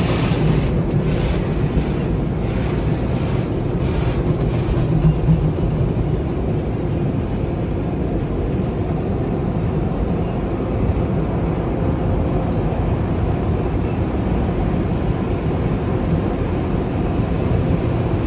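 Automatic tunnel car wash heard from inside the car's cabin: a steady rush of water spray and washing machinery on the car's body and windshield.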